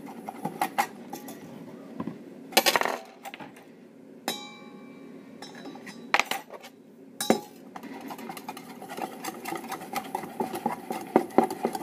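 Stainless steel mixing bowl clinking and knocking as a metal whisk and spoon work in it, with one ringing metal clang about four seconds in.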